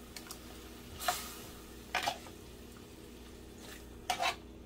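Raw chicken thighs laid into a pot of cooking onions and sofrito with metal tongs: three short, soft squishes and clicks, at about one, two and four seconds in, over a faint background.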